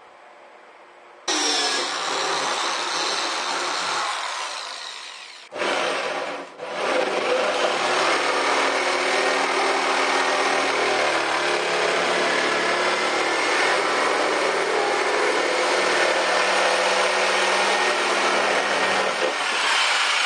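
Power tool cutting: it starts abruptly about a second in, stops briefly and starts again between five and seven seconds in, then cuts steadily.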